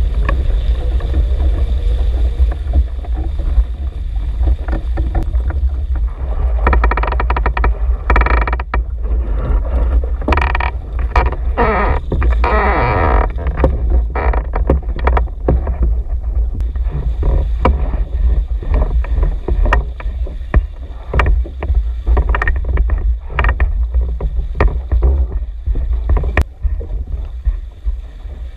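Eureka wooden sailing canoe with outrigger floats running fast under sail: water rushing and splashing along the hulls, many small knocks and clicks from the boat and rigging, over a steady low wind rumble on the microphone. Between about six and thirteen seconds in the splashing and rattling grows louder and busier.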